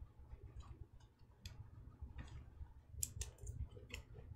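Faint clicks and light rustling of baseball cards and card packs being handled, with a few sharp ticks about three seconds in, over a low steady hum.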